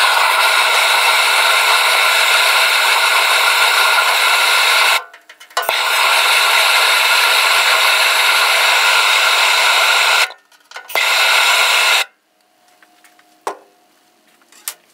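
Handheld gas torch on a Bernzomatic cylinder, its flame hissing steadily while heating a crack in an aluminum live well for brazing. The hiss cuts out briefly about five seconds in and again just after ten seconds, then stops about twelve seconds in.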